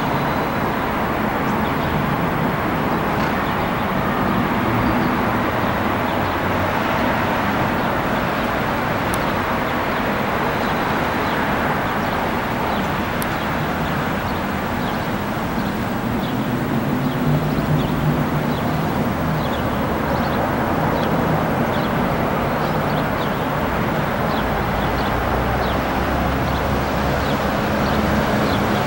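Jet engines of a taxiing Embraer E175 running at low taxi power, heard from a distance as a steady rush, with gusts of wind on the microphone adding an uneven low rumble that grows near the end.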